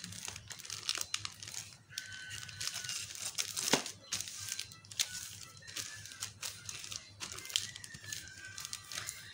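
Clear plastic sheet crinkling and rustling as a wooden rolling pin presses and rolls dough flat beneath it on a wooden board, with irregular crackles throughout.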